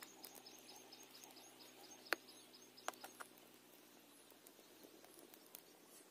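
Near silence outdoors: birds chirping faintly, a quick run of high chirps in the first two seconds and short falling calls throughout. A few sharp clicks stand out, the loudest about two seconds in, with a faint low hum that dies away about halfway through.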